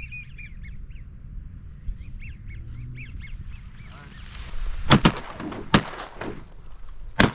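Wigeon whistling in short, rising-and-falling notes. Then a volley of shotgun blasts from several hunters firing together, the first pair about five seconds in and two more over the following two seconds.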